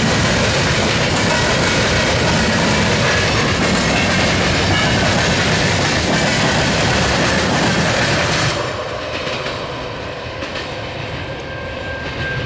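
Tank cars and covered hoppers of a freight train rolling past, a steady rumble with wheels clicking over the rail joints. About eight and a half seconds in the last car goes by and the sound drops away as the train moves off, leaving a thin high tone near the end.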